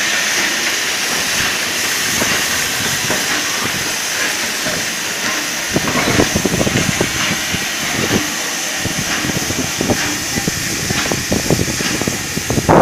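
Pt47 steam locomotive hissing steam steadily as it eases up to a carriage. From about six seconds in, irregular metal clanks and knocks come from the buffers and couplings as the locomotive meets the carriage.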